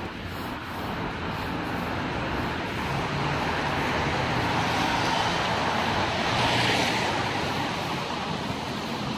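Street traffic on a wet road: a passing vehicle's tyres hiss on the wet asphalt, growing louder to a peak about two-thirds of the way through and then fading.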